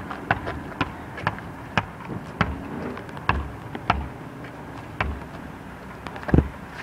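A basketball bouncing on an outdoor hard court: sharp bounces about twice a second, then a few spaced bounces and one louder bounce near the end.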